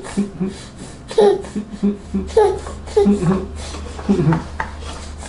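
A seven-month-old baby's short fussy whimpers and sobs between spoonfuls, a string of brief voiced cries about twice a second, some louder with a falling pitch, over a steady low hum.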